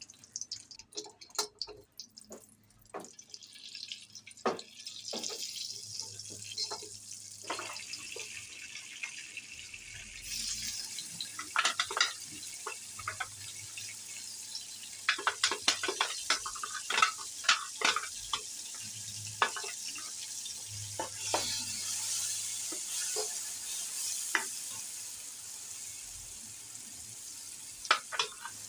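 Food frying in a hot pan with a steady sizzle that builds up over the first several seconds, broken by the sharp clicks and scrapes of a spoon stirring against the pan.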